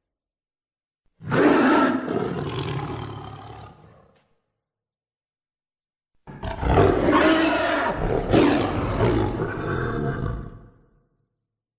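Grumpy the T-rex's roar sound effect, heard twice with dead silence between: a roar of about three seconds beginning about a second in, then a longer roar of nearly five seconds starting about six seconds in.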